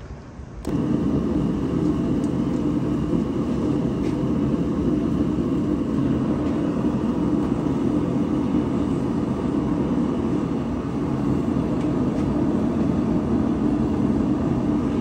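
Propane gas forge burner running with a loud, steady rushing noise, starting abruptly about a second in.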